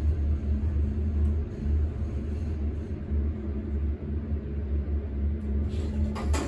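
Elevator car travelling down one floor: a steady low rumble with a faint hum. Near the end, a brighter clattering begins as the car arrives and the doors start to open.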